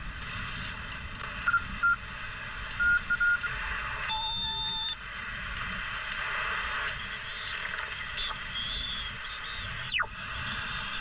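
Hiss and band noise from a CRT SS9900 10/11-metre mobile transceiver's speaker in upper sideband as the set is tuned, with a few short steady tones in the first seconds. About four seconds in, a two-tone beep sounds as the frequency jumps to the 12 m band. Near the end, a whistle falls steeply in pitch as the tuning passes a signal.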